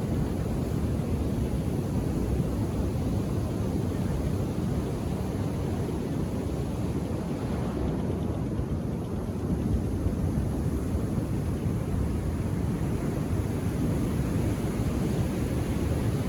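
Ocean surf washing onto a beach: a steady low rumble of breaking waves that eases slightly about halfway through.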